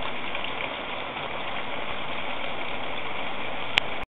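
Eggplant slices frying in hot oil in a pan: a steady sizzle, with one sharp pop near the end, cutting off suddenly.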